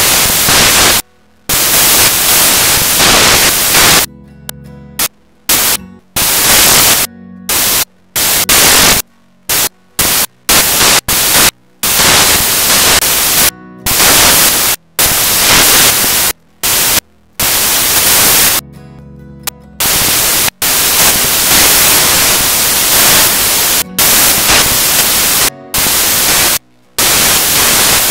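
Loud hissing static that cuts in and out abruptly, in irregular stretches lasting from a fraction of a second to several seconds, with short dead gaps between.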